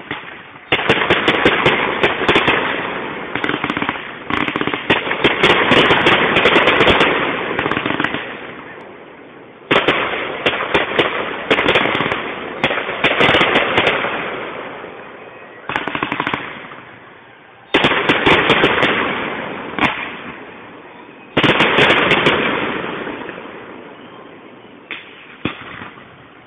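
Fireworks display: about five loud bursts, each setting off a dense, rapid crackling of many small reports that dies away over several seconds.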